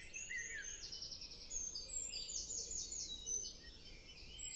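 Small songbirds singing: a mix of quick chirps and short whistled notes, with a rapid run of repeated notes about two to three seconds in, over faint outdoor background noise.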